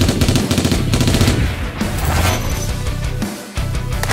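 Dramatic background music with rapid machine-gun fire sound effects laid over it, briefly dropping out a little after three seconds in.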